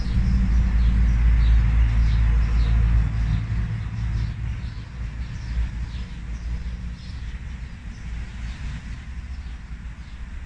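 A low rumble, like a vehicle going by, that fades over the first few seconds, with small birds chirping.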